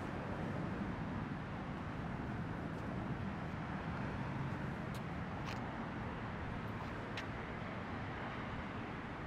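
Steady outdoor city ambience, a low rumble of distant road traffic. A few faint clicks come about halfway through.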